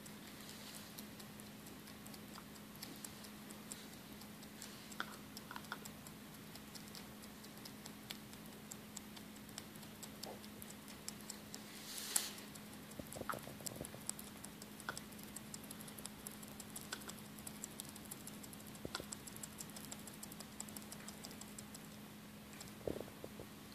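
Hoary bat chewing a mealworm: a long run of tiny, irregular clicks and crunches, a little louder about halfway through, over a steady low hum.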